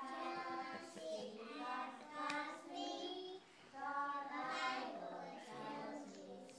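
A small group of young children singing a song together, with some notes held.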